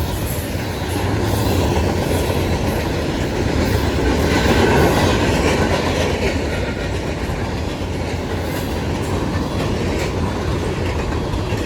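Norfolk Southern freight train cars rolling past, steel wheels clattering over the rail joints in a steady rumble that swells a little midway.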